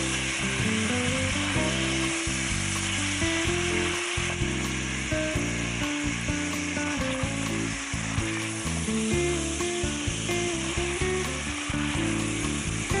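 Minced beef sizzling steadily as it browns in hot olive oil in an enamelled pot, stirred and broken up with a silicone spoon.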